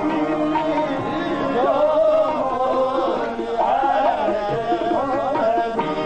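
Live qawwali music: harmonium and tabla, with a voice singing long, wavering runs over the held harmonium tones.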